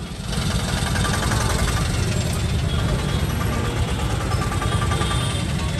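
Engine of an old, battered utility vehicle idling alongside, a steady low rumble, amid busy street traffic.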